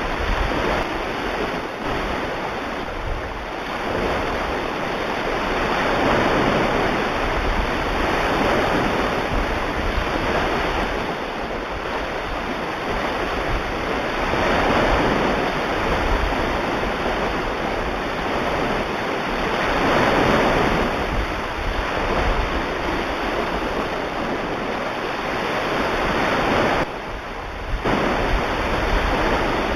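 Ocean waves breaking on a shore, each surge swelling and falling back every five or six seconds.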